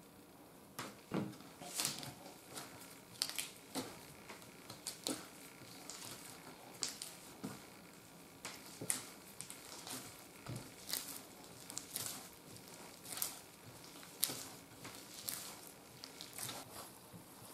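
Bread dough being kneaded by hand on a wooden board while butter is worked into it. The dough is pressed and pushed against the board in irregular soft slaps and taps, one or two a second, starting about a second in.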